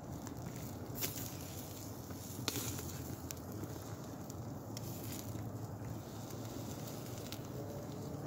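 Wood fire burning with a steady low rush and scattered sharp crackles and pops, the loudest about one second and two and a half seconds in.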